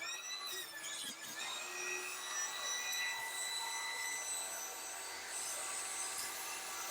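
Table saw ripping strips of wooden top-bar stock, its blade whine dipping in pitch near the start of the cut and then running steady.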